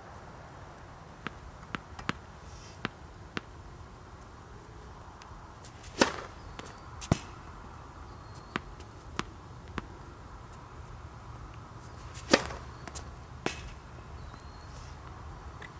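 Tennis ball bounced several times on a hard court before a serve, then struck hard by the racquet, with a second sharp knock about a second after each strike. The bounce-and-serve routine happens twice, the serves about six seconds apart.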